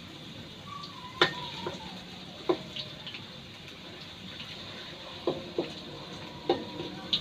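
Cubed potatoes frying in oil in a stainless steel wok, a steady sizzle, with a wooden spatula knocking against the wok several times as they are stirred; the metal rings briefly after some knocks.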